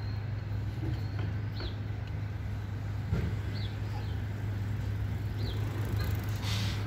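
Outdoor ambience: a steady low rumble, with a short high chirp about every two seconds.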